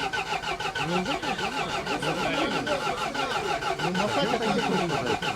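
An off-road vehicle's engine is being cranked by its starter, a steady rapid even rhythm that never catches. The engine is flooded.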